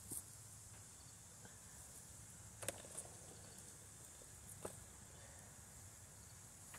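Near silence: faint steady outdoor hiss with a few soft clicks, the sharpest about two and a half seconds in and another near the end.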